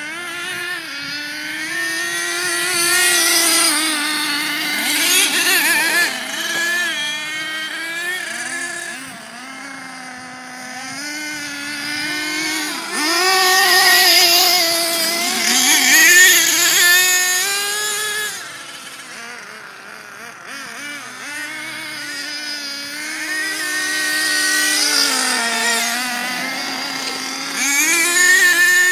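Small two-stroke nitro engines of radio-controlled cars, an HPI Savage X monster truck and an Ansmann Virus buggy, running hard with their pitch rising and falling as they accelerate and back off. The engines are loudest about halfway through and again near the end, as a car passes close.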